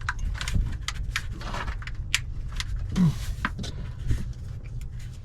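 Scattered sharp metallic clicks and clinks of wrenches and hardware being handled while front shocks are replaced, over a steady low hum.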